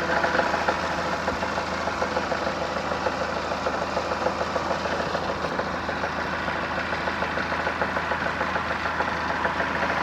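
Chrysler Voyager (Dodge Caravan) 2.4-litre EDZ petrol four-cylinder idling steadily with a rapid knock from low down near the engine–gearbox joint. The knock comes from an automatic-transmission flexplate cracked around its crankshaft bolts, together with play in the balance shafts and a stretched balance-shaft chain.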